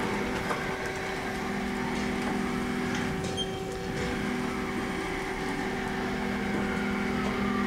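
Haas SL-40 CNC lathe's turret carriage traversing along the Z axis: a steady, smooth machine hum with a few steady tones. The lower part of the hum stops briefly about three seconds in, with a faint click, then resumes as the slide moves again.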